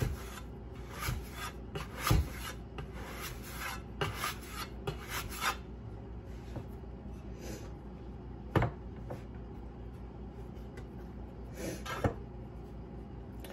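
Metal bench scraper scraping across a floured wooden cutting board as bread dough is pushed and pulled into a tight ball, in a run of short scrapes, then quieter, with one sharp knock about eight and a half seconds in.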